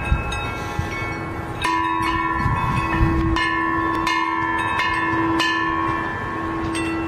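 A homemade garden bell made from a scrap steel gas cylinder, struck repeatedly, about six strikes roughly half a second to a second apart, with a deep ringing tone and brighter overtones that carry on between strikes.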